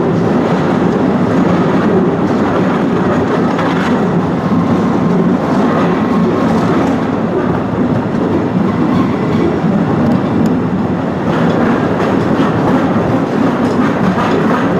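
Narrow-gauge cave train running steadily along its track: a constant rumble and rattle of wheels and open carriages on the rails, with faint clacking.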